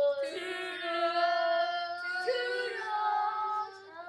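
Two young voices singing a long drawn-out goodbye, 'Toodles', in harmony. Both voices shift pitch about two seconds in and break off near the end.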